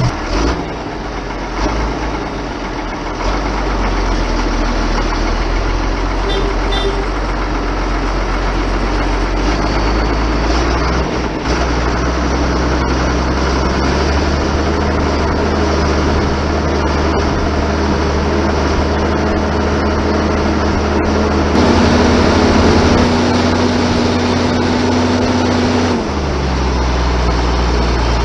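Ford TW-25 tractor's six-cylinder diesel engine running under load while pulling discs through rough ground. Its note shifts a few times, rising for several seconds near the end before settling back.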